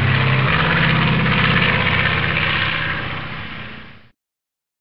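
Propeller aircraft engine running steadily, its pitch dropping about half a second in, then dying down and cutting off suddenly about four seconds in.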